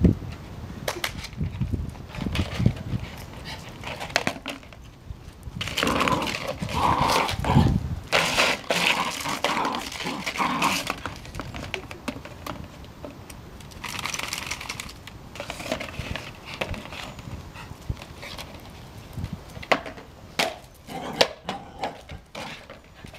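Border terrier puppy barking in bouts as she attacks a plastic flower pot, with the pot knocking and scraping on concrete. The barking comes in a long run a few seconds in and a shorter one about halfway through.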